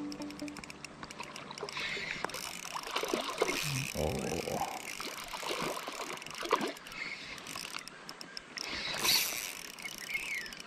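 Water splashing and sloshing with irregular knocks and rustles, a louder splash about nine seconds in: a hooked mandarin fish being brought in on a lure.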